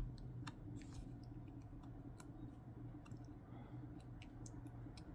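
Faint, scattered small clicks from handling an iPhone 12's internals while a flex-cable connector is pressed into place, over a steady low hum.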